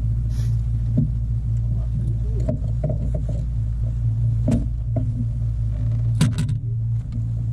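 Steady low motor hum, with a few sharp knocks and clicks of gear being handled on the boat.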